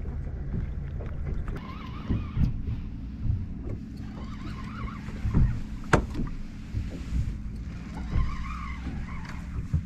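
Steady low rumble aboard a small fishing boat at sea, with a few knocks and a sharp click about six seconds in.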